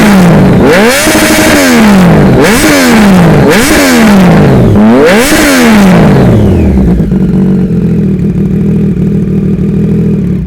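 2019 Triumph Street Triple RS's inline three-cylinder engine, warmed up, breathing through an SC-Project CR-T exhaust: blipped up to high revs about four times in quick succession, one rev held briefly at the top, then settling to a steady idle that cuts off abruptly near the end.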